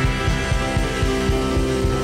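A rock band playing live: acoustic and electric guitars, electric bass and a drum kit keeping a steady, fast beat.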